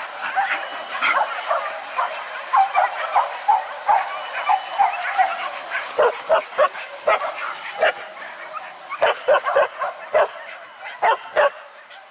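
Hunting dogs barking and yelping, out to track wild boar. Quick high yips come through the first few seconds, then louder, sharp barks in clusters from about six seconds in.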